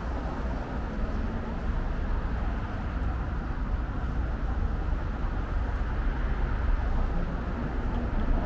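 Steady traffic noise from a street, a continuous wash with a deep low rumble and no distinct single vehicle standing out.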